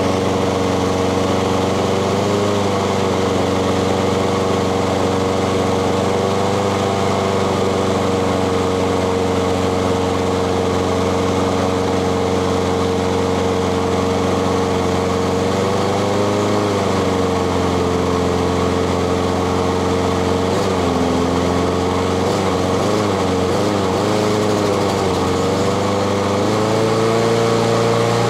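Honda GCV160 single-cylinder push-mower engine running steadily at a low speed while its governor spring bracket is adjusted to raise the engine speed. The pitch wavers a few times and rises a little near the end.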